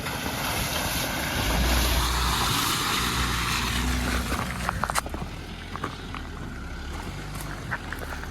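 A Jeep driving slowly over a rough dirt road, its engine running low under a loud rushing noise that dies away about five seconds in. After that come scattered clicks and knocks from the rough road.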